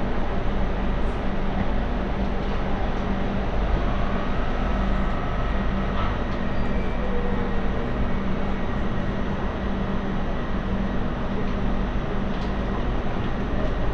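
An MTR Light Rail Phase III car running, heard from inside the saloon: a steady rumble from the wheels and track, with a steady low hum.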